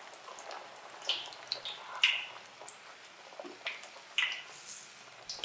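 Youtiao dough deep-frying in hot oil in a shallow pan: a steady sizzle with scattered small pops and crackles.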